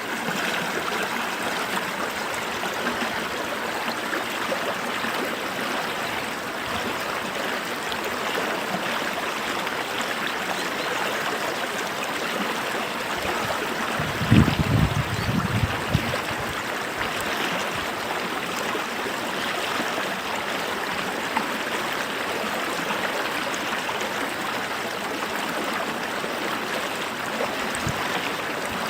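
Creek water flowing and babbling steadily. About halfway through there is a brief louder, low rumble.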